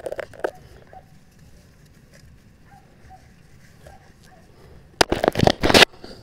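Dry grass and sticks rustled and knocked by hand while poking at a crab hole: a few sharp clicks at the start, then a loud crackling rustle lasting just under a second about five seconds in.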